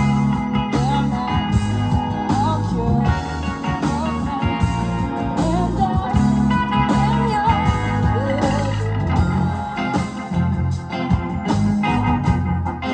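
Live rock band playing: electric guitars, keyboards, bass and drums, with a melody line that bends up and down in pitch over a pulsing bass and drum groove.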